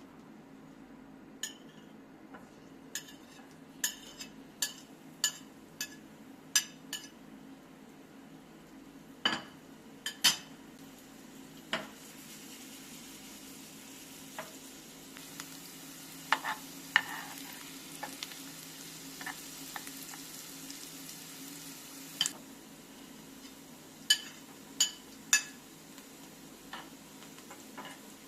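Kitchen cooking sounds: a metal utensil clinking against a pot or bowl in a string of light ringing taps, with a stretch of soft sizzling in the middle, over a low steady hum.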